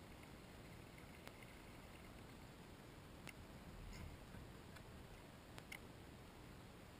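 Near silence with a few faint, scattered clicks of a fishing rod and reel being handled and cast, and a soft low bump about four seconds in, as the rod is cast.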